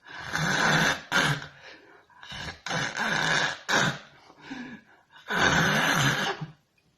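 A woman making harsh throat sounds in several bursts, two of them about a second long, while trying to raise the back of her tongue as an anti-snoring exercise.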